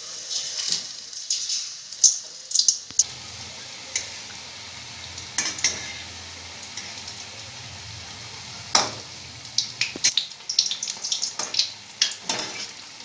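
Malpua batter deep-frying in hot oil in a steel kadai: a steady sizzle, broken by sharp scrapes and taps of a metal spatula against the wok, most often in the last few seconds.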